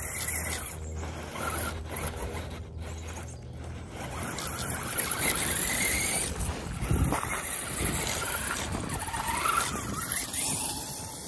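Radio-controlled Axial Wraith crawler's electric motor and gears whining, the pitch rising and falling with the throttle, with its tyres crunching over dirt and gravel.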